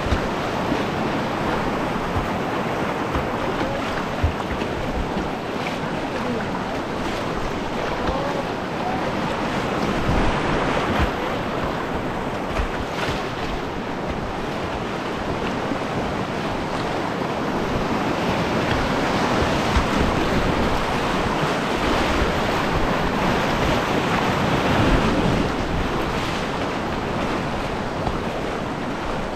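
Rushing whitewater of a creek rapid, heard close to the water from a kayak, with wind buffeting the microphone and scattered small splashes.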